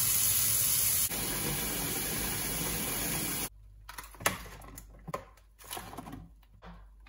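Kitchen tap running into a stainless steel sink, the flow changing about a second in and shutting off about three and a half seconds in. Then a few light knocks and handling sounds around the sink.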